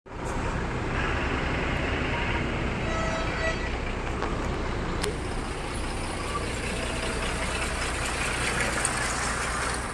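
Steady road-vehicle engine and traffic noise with a low hum, a brief pitched tone about three seconds in and a single click about five seconds in.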